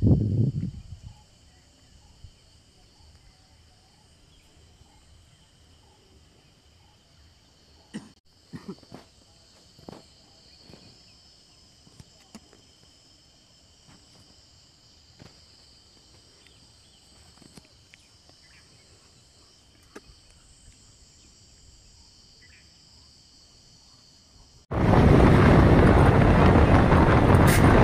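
Evening insect chorus, a faint, steady high-pitched chirring, with a few soft knocks scattered through it. Near the end a loud rushing noise cuts in abruptly and drowns it out.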